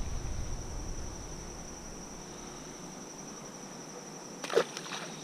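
Steady high-pitched insect drone, with one short splash about four and a half seconds in as a rock bass is tossed back into the river.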